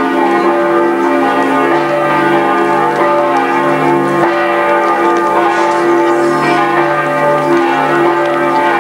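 Church bells ringing steadily, their long-held tones overlapping and renewed by fresh strikes every second or two.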